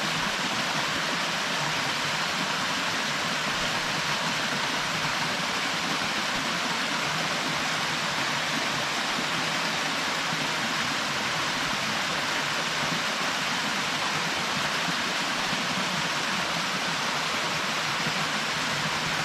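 Waterfall splashing into its plunge pool, a steady, even rush of falling water with no change in level.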